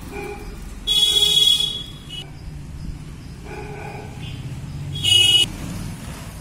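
A horn honks twice in buzzy blasts, the first about a second long, the second shorter about five seconds in, over a low steady rumble.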